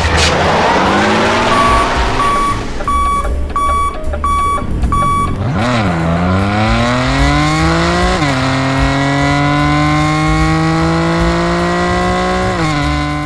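A car engine accelerating through the gears: its pitch climbs, drops back at each gear change and climbs again, with three changes. In the first seconds a beeper sounds six short, evenly spaced beeps at one pitch.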